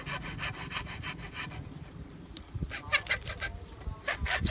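Hacksaw cutting through PVC pipe: quick back-and-forth strokes of the blade rasping through the plastic. The strokes pause briefly about two seconds in, then resume more loudly.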